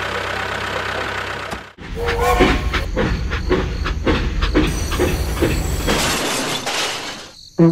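Steam-train chugging with rail clatter, about two beats a second, for a toy steam locomotive on plastic track. About six seconds in it gives way to a long hiss as the engine runs into bricks on the track, fading out near the end. It is preceded by a short steady engine drone for the toy tractor.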